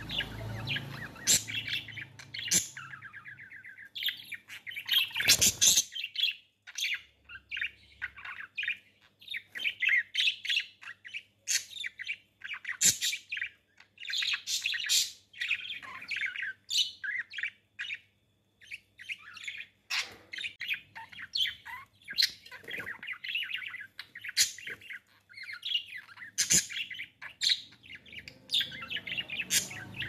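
Budgerigars chattering in a rapid stream of short chirps and warbles while a pair mates, with a brief lull about two-thirds of the way through.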